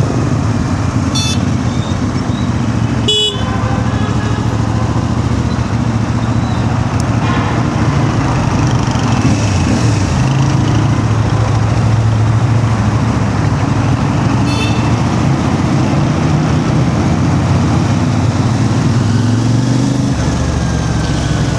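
CF Moto 450 MT's parallel-twin engine running under the rider in stop-and-go traffic, its pitch dipping and rising again about halfway through. Short horn toots cut in about a second in, about three seconds in, and again near 14 seconds.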